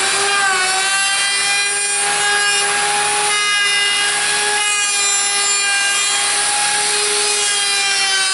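Large D-handle wood router running at full speed with a steady high whine, its bit cutting a profile along the edge of a wooden board.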